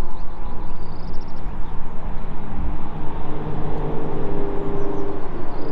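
Car engines running at the circuit: a steady, continuous engine drone with several pitches layered together.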